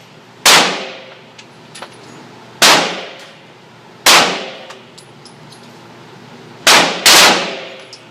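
Five 9mm pistol shots from a Glock 19 at uneven intervals, the last two in quick succession, each ringing on with the echo of an indoor range.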